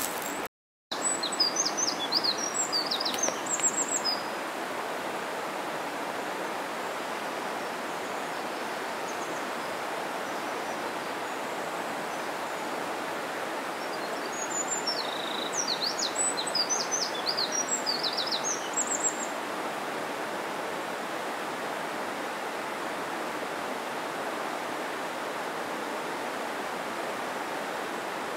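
Steady rush of a mountain stream, with a small bird chirping in two brief flurries, one just after the start and one about halfway through. The sound cuts out for a moment right at the start.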